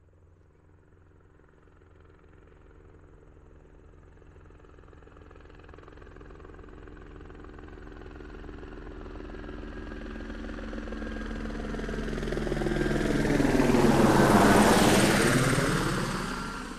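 Helicopter flying in, its rotor and engine growing steadily from faint to loud. It passes close about fourteen seconds in, its tone sweeping, then fades out quickly near the end.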